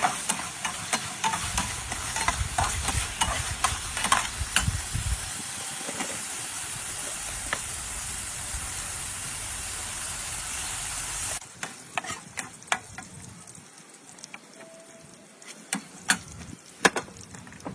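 Food frying and sizzling in a pan, with clinks of a utensil; the sizzle cuts off suddenly about eleven seconds in, leaving a few scattered clicks and knocks.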